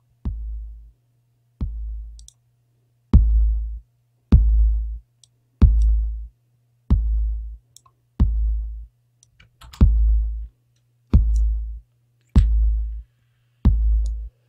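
Soloed electronic kick-drum tracks playing back from a DAW mix: a single kick with a deep low boom about every second and a quarter, the hits louder from about three seconds in, over a steady low hum. The kicks are played plain first and then through Luna's Neve summing.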